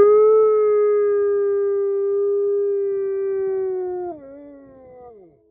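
Wolf howling: one long howl held at a steady pitch, which drops about four seconds in and then slides lower as it fades out.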